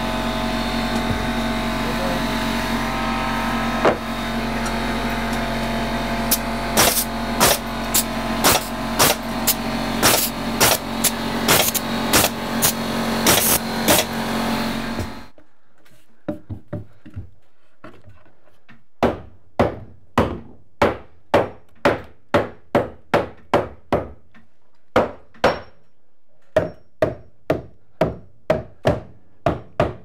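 A pneumatic framing nailer shoots a dozen or so nails into a built-up 2x6 and OSB header over a steady motor hum, and the hum cuts off about halfway through. Then a framing hammer strikes wood in quick runs of blows, about two or three a second, knocking the header into place in the stud framing.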